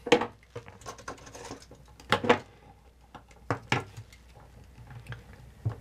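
Combination wire stripper-crimper snipping through thin dimmer control wires: several sharp snips a second or so apart, with light handling clicks between.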